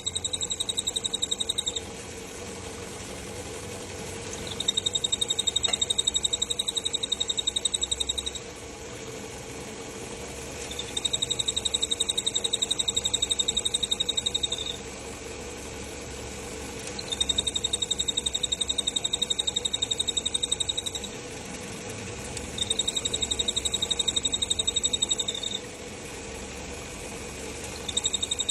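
Toyota Corolla XLi's clutch cylinder squealing with a high, steady whistle that comes on for three to four seconds and drops out for two to three, six times over, as the clutch is worked, over a steady low hum. The squeal is the sign of a faulty clutch cylinder.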